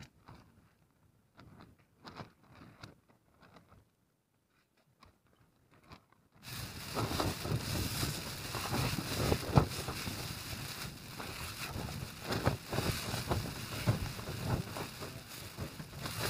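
Faint rustles and clicks of gear and food packets being handled inside a tent. About six seconds in, a loud, steady rushing noise starts abruptly, with knocks and rustles over it.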